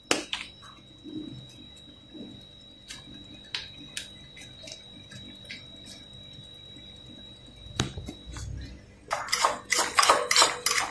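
A few faint clicks and handling knocks, then, about nine seconds in, a spoon starts scraping and clinking rapidly against a bowl as fresh cream and mayonnaise are stirred together.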